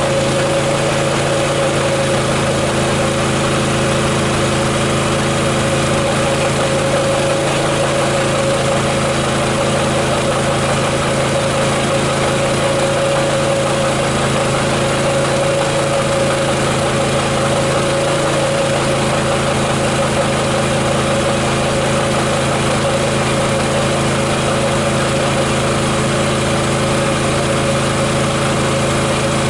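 Champion Dual Fuel 3400-watt inverter generator running steadily, with an even hum and no change in engine speed.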